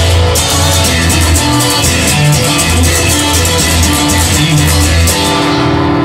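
Instrumental passage of a rock song: guitar over bass guitar and a drum kit, with the cymbals thinning out near the end.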